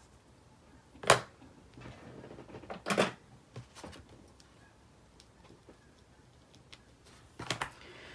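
Sharp clicks and knocks of stamping supplies being handled and set down on the craft desk. The loudest comes about a second in, as the clear acrylic stamp block is put down. Another knock comes about three seconds in, and a quick pair near the end.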